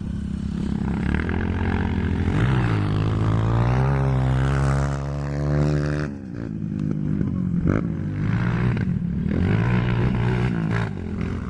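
Honda CRF230 dirt bike engine revving on the track: the pitch climbs from about two and a half seconds in, holds high, then drops off sharply about six seconds in as the throttle is closed, before rising and falling again near the end.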